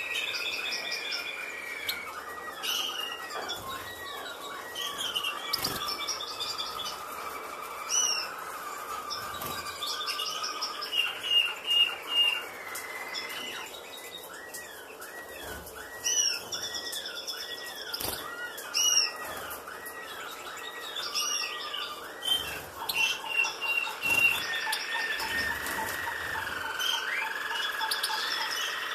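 Caged finches chirping and singing: runs of quick rising-and-falling notes at a few per second, long held whistles and higher twittering, with a few short knocks.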